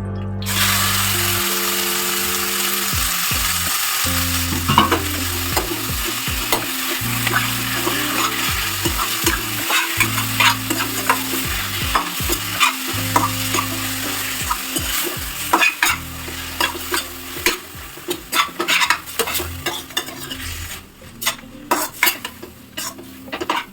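Ground chicken sizzling in hot oil in a pan. The sizzle starts suddenly right at the outset, with a spoon clicking and scraping against the pan as it is stirred. The sizzle fades near the end, leaving mostly the clicks of stirring.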